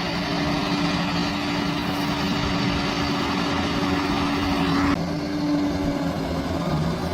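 Large bulldozer's diesel engine running steadily with a constant hum. About five seconds in, the higher hiss in the sound drops away suddenly while the engine hum carries on.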